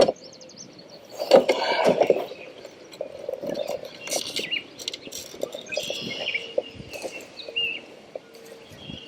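Birds chirping with many short high calls, and a brief louder rustling noise about a second and a half in.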